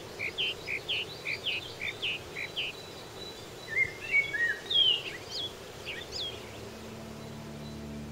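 Birds calling over a steady outdoor hiss: a quick series of short chirps, about four a second, for the first few seconds, then scattered whistled chirps. Low sustained music tones fade in near the end.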